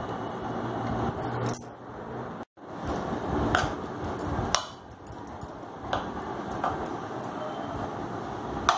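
Steel spoon scraping and clinking against an aluminium tin while spreading oil tempering with mustard seeds over dhokla, with a handful of sharp clinks spaced through it. The sound cuts out for a moment about two and a half seconds in.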